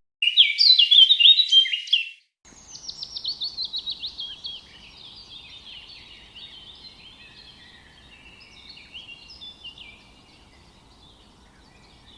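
Birds chirping: a loud burst of chirps for about two seconds, then, after a brief gap, a run of quick falling chirps that gradually fades over faint background hiss.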